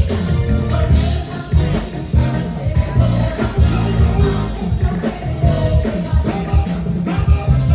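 Music with singing over a steady, heavy bass beat.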